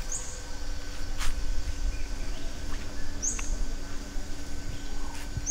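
A small animal's short, high chirp, repeated three times at intervals of two to three seconds. It sounds over a steady low rumble, with a single sharp click about a second in.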